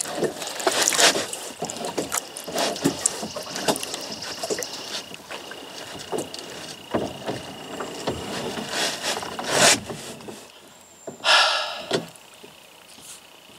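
A kayak being paddled and worked through shallow water: irregular paddle splashes, knocks and scrapes, with one louder splash about eleven seconds in.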